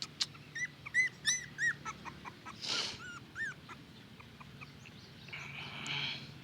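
Newborn puppies whimpering: a run of short, arched squeaks in the first two seconds, followed by a couple of softer breathy noises.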